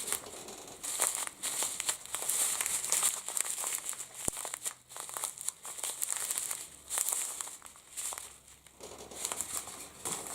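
Plastic packaging crinkling and rustling in uneven spurts as a small parcel is unwrapped by hand.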